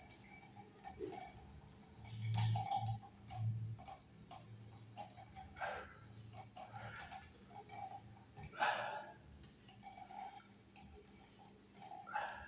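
Pliers clicking and scraping on electrical wires at a wall box, with irregular small ticks and a few short rustles as the wires are worked.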